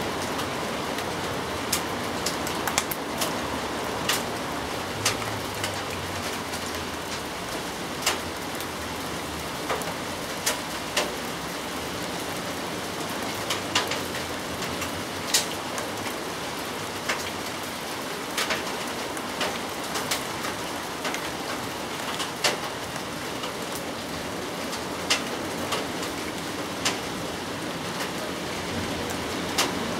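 Steady rain falling, with single loud drips landing close by at irregular intervals, about once a second.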